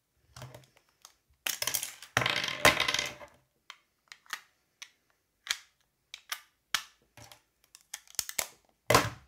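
Hands handling a Samsung BN59 TV remote's plastic case and two AA batteries: a busy stretch of rattling and scraping about a second and a half in, then scattered light clicks as the batteries are worked into the battery compartment, with one sharp click near the end.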